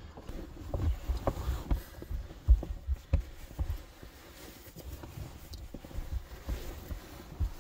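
A person and a dog shifting about on bedding on a car's sleeping platform: sleeping-bag and clothing rustle with irregular dull thumps and bumps.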